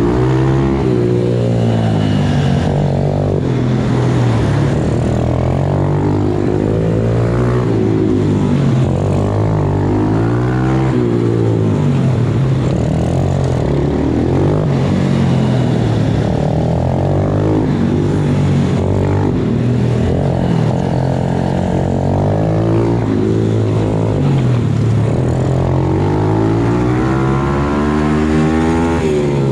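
MRF 120 pit bike's small engine revving hard and falling back over and over, about every two seconds, as the rider accelerates out of each corner and shuts off for the next on tight laps.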